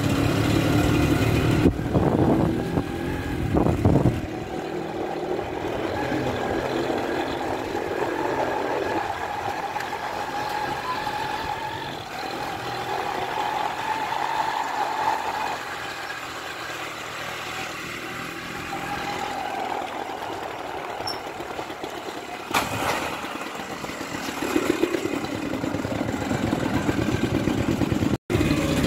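Motorcycle engine running as the bike rides slowly along a lane. It is louder in the first few seconds, quieter through the middle and louder again near the end, with a momentary dropout just before the end.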